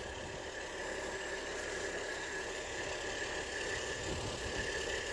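Steady machine running, an even hum and hiss with a thin high whine held throughout, from the air setup used to inflate the trailer tires.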